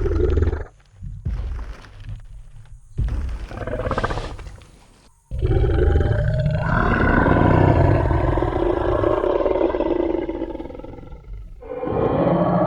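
Dinosaur roar sound effect of a Tyrannosaurus rex: short growls in the first few seconds, then after a sudden stop a long, loud roar of about six seconds that fades out, with another roar starting near the end.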